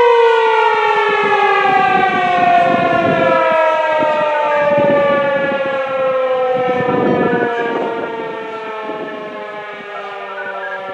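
ASC T-128 outdoor warning siren winding down at the end of its test: its steady wail starts to fall in pitch about as the sound begins and keeps gliding slowly lower while fading. Patches of low rumbling noise come and go underneath.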